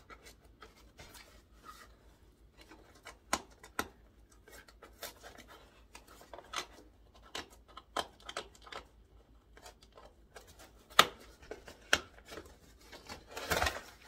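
A cardboard sample package being opened and unpacked by hand: scattered scrapes, rustles and light clicks of cardboard and packaging, with a sharper knock about 11 seconds in and a denser burst of rustling near the end.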